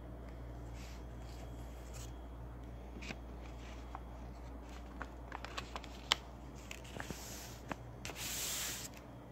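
Hands handling a paper envelope to seal it shut: scattered light clicks and taps, then a short rustle about eight seconds in, over a low steady hum.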